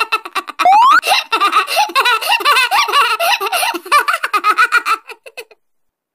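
Dubbed-in sound effect of a person giggling: rapid bursts of laughter, with a rising whistle-like glide just under a second in. The laughter cuts off suddenly about five and a half seconds in.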